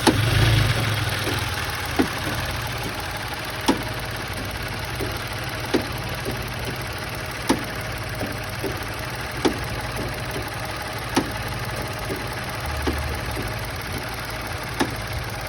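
Car engine idling with a sharp knock about every two seconds and fainter knocks in between: the noise of a loose engine mount.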